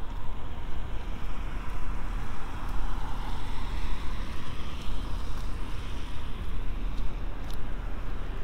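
Wind rumbling on the microphone over the hiss of traffic on a wet road, the tyre hiss swelling and fading about three seconds in as a vehicle passes.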